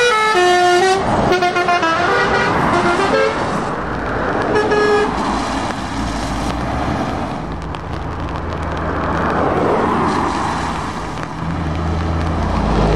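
A truck's musical air horn plays a quick tune of stepping notes for about three seconds, and a single horn note follows shortly after. Then vehicles pass on a wet road with hissing tyres, and from about halfway a heavy diesel truck engine drones low as it goes by.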